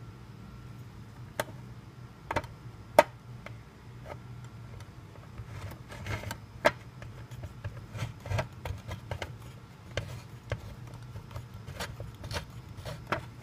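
Smooth-edge manual can opener clicking and knocking against the rim of a large steel food can as it is fitted on and worked by hand: a few separate sharp clicks, then a run of small irregular ticks.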